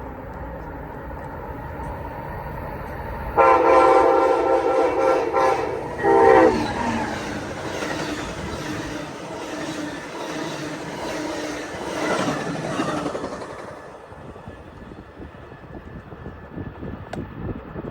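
Amtrak ALC42 Charger locomotive's horn sounding one long blast and then a short one, followed by the rush and clatter of the passenger train passing on the rails, which dies away.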